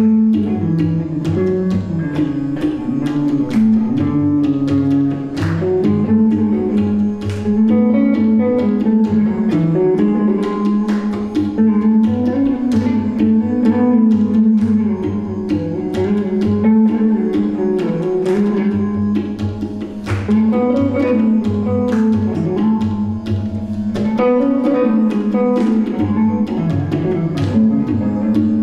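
Electric guitar playing a raga melody over tabla drumming, the guitar's notes held and shifting in pitch while the tabla strikes run through it.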